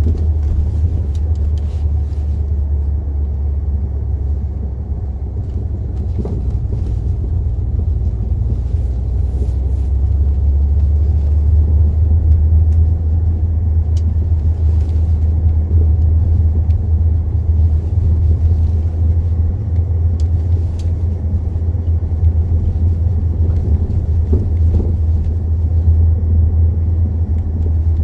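Cabin view of a Ford Mustang being driven: a steady low road and drivetrain rumble, with a few faint clacks here and there from the front end. The owner puts the clacking down to worn front sway bar end links.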